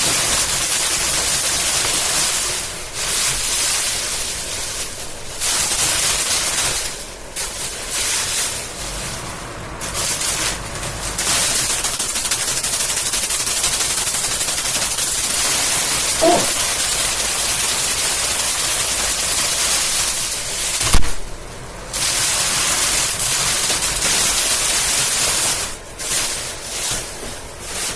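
Plastic grocery bag flapping and rattling rapidly against the spinning blades of an Amazon Basics box fan while being torn apart. The loud crackling comes and goes in stretches, with brief drops, the longest about three seconds from the end.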